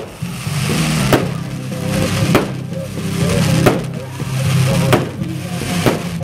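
Background music with a steady beat: a sharp percussive hit about every second and a quarter over a low sustained bass.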